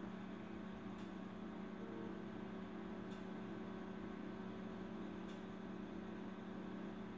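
Steady low electrical hum, with a faint tick about every two seconds.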